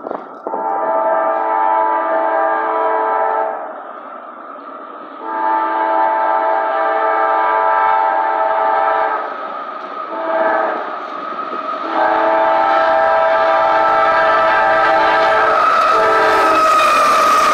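Multi-chime air horn of a CSX GE CW44AC diesel locomotive sounding the grade-crossing signal: long, long, short, long. About two-thirds in, the rumble of the approaching locomotive and train joins it and grows louder.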